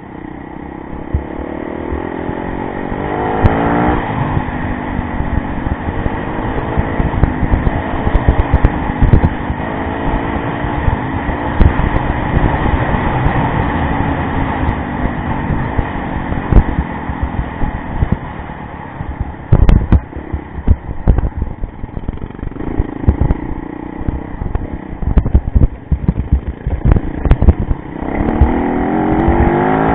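Yamaha rally motorcycle's engine under way, its pitch rising as it accelerates about three seconds in and again near the end, easing off in between. Frequent short thumps and knocks run through it.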